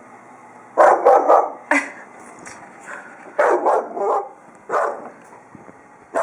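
Young Labrador retriever puppy barking: about eight short barks in quick clusters, the first starting about a second in and the last near the five-second mark.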